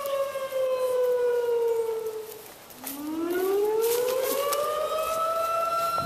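A siren wailing: its tone falls slowly, fades out briefly about two and a half seconds in, then rises again and holds at a high, steady pitch.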